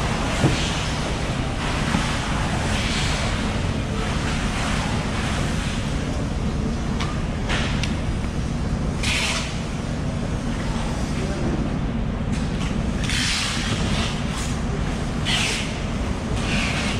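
Steady low rumble of wind on the microphone and background noise, with a few short scraping hisses of a knife working along a yellowfin tuna loin.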